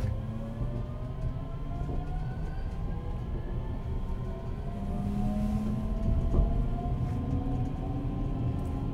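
JR Central 383 series electric train heard from inside a motor car as it accelerates: the Toshiba GTO inverter and traction motors give several thin tones that rise slowly in pitch over the low rumble of wheels on rail. A single knock comes about six seconds in.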